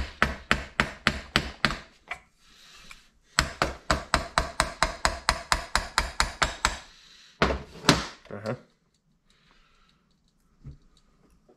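Hammer tapping on a cast-metal carburetor to knock a stuck part loose. A run of about eight quick taps, a short pause, then a longer run of about twenty faster taps at roughly six a second, and two harder blows about two-thirds in.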